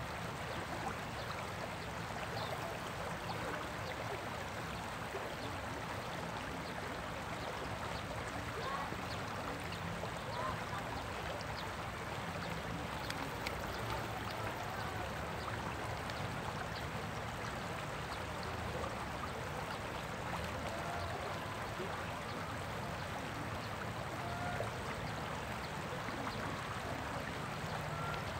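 Shallow river rapids: water running steadily over rocks, an even rushing and babbling.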